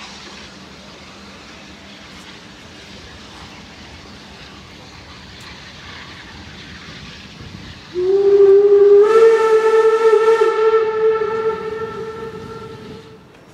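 Steam locomotive whistle blowing one long blast about eight seconds in, stepping up in pitch a second after it opens, then fading and cutting off near the end. Before it, only faint rail-yard background noise.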